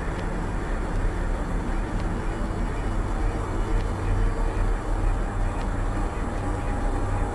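Ambient album track of edited sound: a dense, steady low rumble of noise with faint held tones and a few faint clicks.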